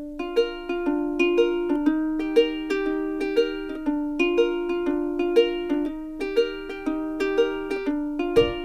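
Background music: a light plucked-string tune, its notes in a steady rhythm.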